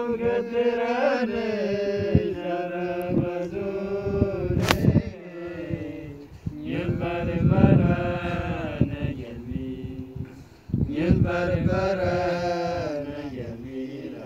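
A man singing unaccompanied, a slow song in long drawn-out notes that bend and waver in pitch, with short breaks between phrases.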